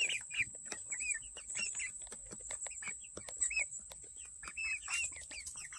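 A flock of Red Star chickens making short, rising-and-falling peeps and soft clucks, over quick taps of beaks pecking at feed.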